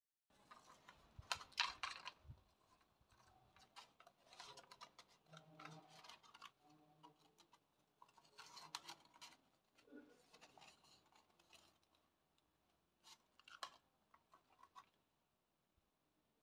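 Faint rustling and crackling of stiff craft paper as a paper cone and paper tube are handled and fitted together, in several short spells with sharper crinkles about a second and a half, nine and thirteen seconds in.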